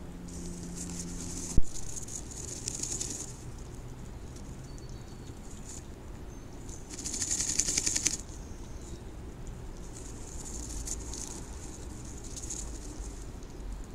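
A female bluebird shuffles and wiggles in a pine-needle nest inside a wooden nest box, making scratchy, rattling rustles of feathers against nest material as she shapes the cup. The rustles come in several bursts; the longest and loudest comes about halfway through. About a second and a half in there is one sharp knock.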